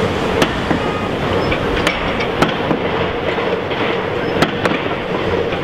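Loud, steady vehicle rumble with a low hum, broken by sharp clicks at uneven intervals.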